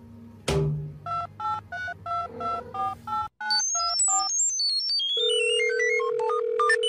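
A sudden sharp sound, then a quick series of touch-tone phone keypad beeps, each a short two-note tone. These give way to a fast run of electronic beeps stepping up and down in pitch over a steady held tone.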